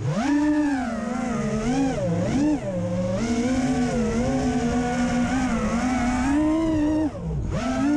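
The brushless motors and propellers of a 5-inch FPV quadcopter whining in flight, the pitch sliding up and down with the throttle. About seven seconds in the whine drops away briefly and climbs back.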